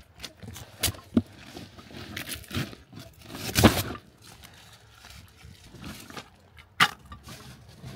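A cardboard box being opened by hand: scattered knocks and cardboard rustles, with a longer tearing sound about halfway through as the packing tape is ripped off, and a sharp knock near the end.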